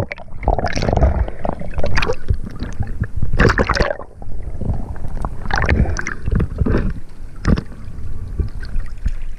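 Water sloshing and gurgling around the diver's camera in a run of uneven bursts as it moves underwater and comes up through the surface. Near the end a speared amberjack splashes as it thrashes at the surface.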